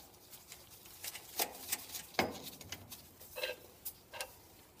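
Small nuts being handled and threaded by hand onto studs on a lathe compound's mounting ring: scattered light metallic clicks and clinks, a couple with a short ring.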